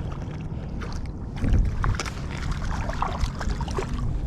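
Wind buffeting the microphone over water lapping at a small boat, with scattered knocks and splashes as a hooked speckled trout is reeled up to the boat.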